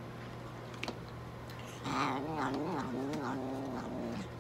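Longhaired mixed-breed cat giving one long, low, wavering yowl, starting about two seconds in, as it is held down and syringe-fed medicine.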